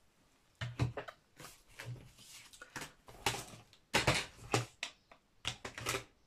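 Paper and craft supplies rustling and knocking as someone rummages through them by hand, searching for a small piece of cardstock. The sounds are irregular and uneven, with the loudest cluster about four seconds in.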